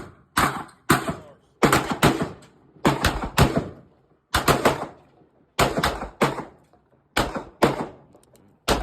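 Rapid handgun fire: sharp shots about two to three a second in uneven strings, each with a short ringing tail.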